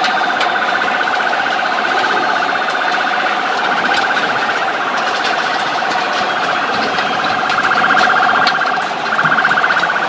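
An electronic siren or alarm sounding one continuous tone of fairly steady pitch with a fast flutter. It dips briefly about nine seconds in, then comes back louder.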